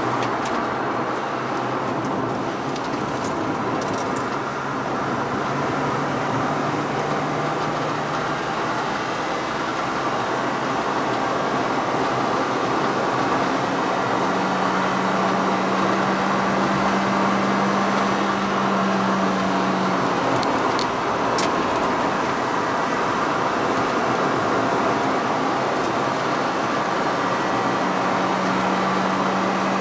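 Car engine and tyre/road noise heard inside the cabin while driving on a circuit. The engine note holds mostly steady, dips about two-thirds of the way through and rises again near the end.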